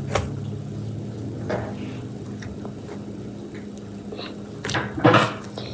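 Slime with Orbeez mixed in being handled: faint scattered squishes and small clicks, with a louder soft squelch about five seconds in, over a steady low hum.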